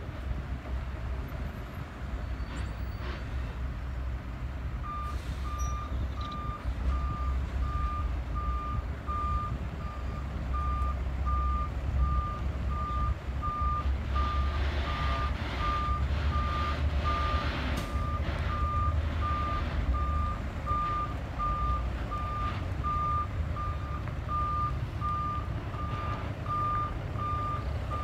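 Car-carrier truck reversing, its engine running low and steady; about five seconds in its reversing alarm starts, a single high beep repeating in an even rhythm.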